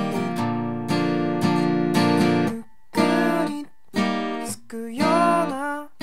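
Acoustic guitar strumming chords as outro music, broken by a few short pauses in the second half.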